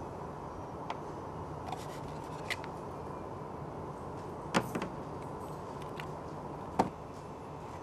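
A few sharp clicks and taps of a cardboard parts box being handled as a plastic oil-seal mounting sleeve is put into it and its flaps are folded shut. The loudest clicks come about halfway through and near the end, over a steady background hum.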